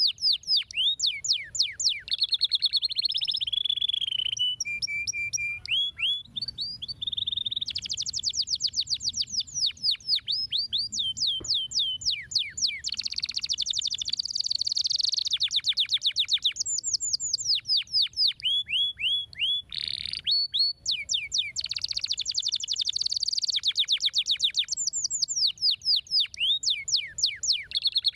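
Domestic canary singing continuously: fast rolls of quickly repeated downward-sweeping notes, changing from one roll to the next, broken by a few short held whistled tones.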